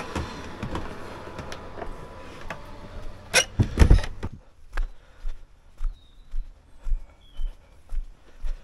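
A door's handle and latch clunk loudly about three and a half seconds in as the door is worked. Then footsteps walk at a steady pace on pavement, about two steps a second, with a few faint chirps.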